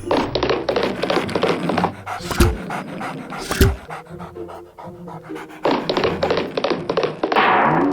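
Cartoon puppy panting sound effect: quick, breathy pants in two spells, one at the start and one again from near six seconds on. Two sharp thumps come in the middle, over soft background music.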